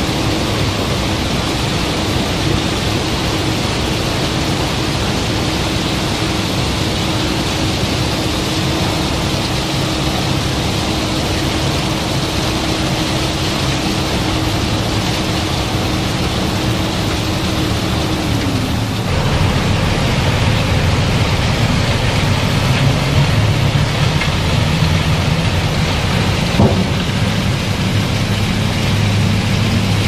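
Steady rushing rumble of barge unloading machinery handling iron ore and river rock. A steady machine hum drops in pitch and stops a little past halfway, after which a deeper engine drone grows louder. A single short knock comes near the end.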